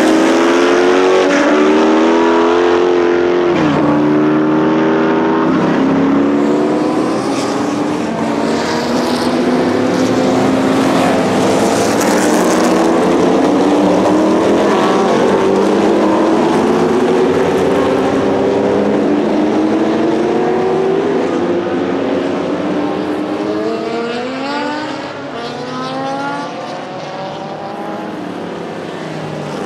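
Lola T70 Mk3 coupé's Chevrolet V8 racing engine at full throttle on track, revs climbing and dropping back at each gearchange. There is a quieter stretch of hard acceleration near the end.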